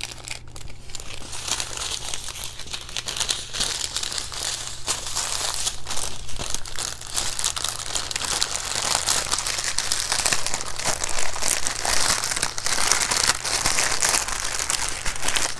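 Plastic packaging crinkling and crackling continuously as it is handled, with many small sharp crackles.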